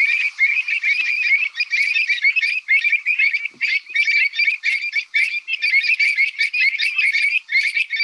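A dense chorus of birds calling, many quick high chattering notes that run together without a break.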